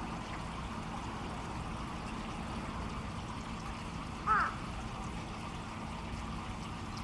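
Steady rushing background like running water, with a single short bird call about four seconds in.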